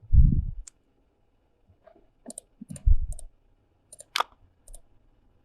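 Several short, sharp clicks spread over the second half, typical of a computer mouse clicking while working in modelling software. There are two low thumps, the louder one right at the start.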